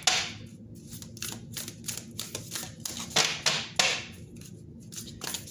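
Moonology oracle card deck being shuffled by hand: a fast, uneven run of card clicks and slaps.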